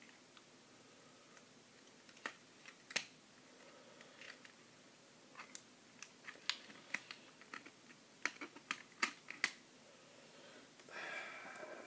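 Hands working at a plastic toy and its packaging, pulling a rubber band off the toy's small door: scattered light clicks and taps, coming thick and fast in the second half, with a short louder rustle near the end.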